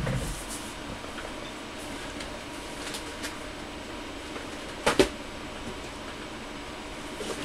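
Handling noise from objects being moved and set down on a hard surface: a soft thump at the start, a few faint clicks, and a sharp double knock about five seconds in.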